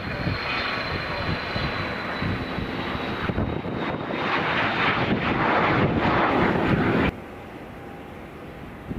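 Turbofan engines of a twin-engine business jet at takeoff power as it lifts off: a steady jet noise with a high whine, growing louder over several seconds. About seven seconds in it cuts off abruptly to the quieter jet sound of another business jet on approach.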